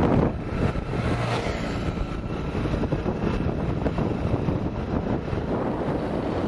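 Steady wind rushing over the microphone of a motorbike rider at road speed, with the rumble of the moving motorbike beneath it.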